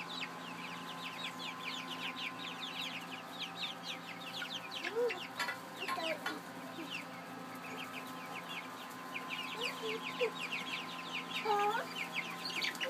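Young chickens peeping: a constant chatter of short, high calls that each fall in pitch, with a few lower calls now and then.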